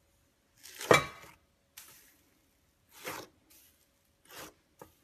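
A hand pressing into a tub of bubbly purple slime, squishing it about six times. The first press, about a second in, is the loudest.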